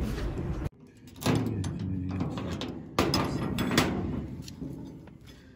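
Padlock on a metal door being unlocked and handled: metallic clicks and rattles, with a fresh clatter about three seconds in that fades away.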